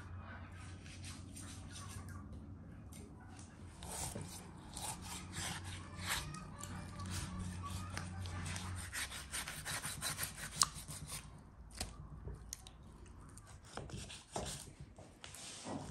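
Rapid, repeated scraping and rubbing strokes, like food being worked by hand, with a low steady hum beneath that fades about halfway through.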